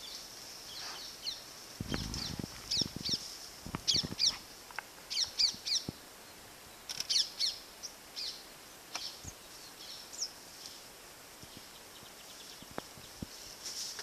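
Wild birds chirping: clusters of short, quick, high calls, repeated many times. A brief low rumble comes about two seconds in, and a few faint clicks follow later.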